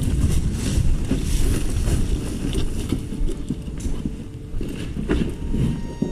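Wind and movement rumbling on a body-worn camera's microphone, with scattered footsteps and gear rustle as the wearer walks. The rumble drops away near the end.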